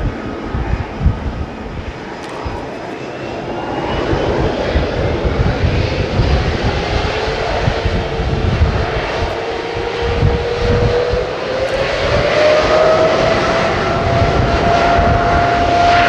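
Boeing 777-300ER's GE90 turbofans spooling up for takeoff: a steady jet engine roar with a low rumble, and a fan whine that rises in pitch about eleven seconds in and then holds as the sound grows louder.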